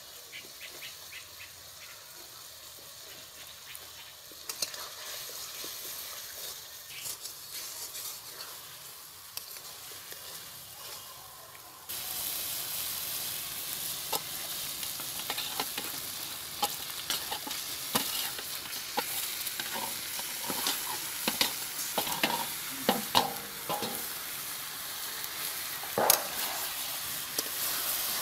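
Food frying in oil in a metal wok (karahi), a steady sizzle, with a metal spatula scraping and clinking against the pan as it is stirred. The sizzle jumps louder about twelve seconds in, and the clinks come thicker after that.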